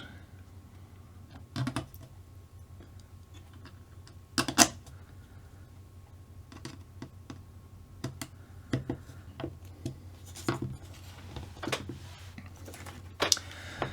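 Scattered light clicks and taps of small plastic and metal RC truck kit parts and screws being handled and fitted together, with one sharper click about four and a half seconds in.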